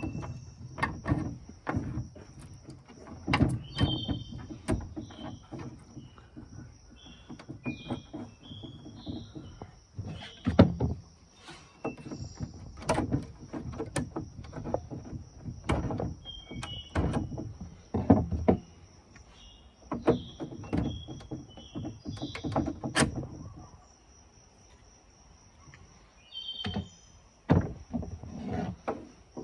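Irregular knocks, clunks and rubbing sounds of hands-on work, with small birds chirping in the background and a quieter lull about two-thirds of the way in.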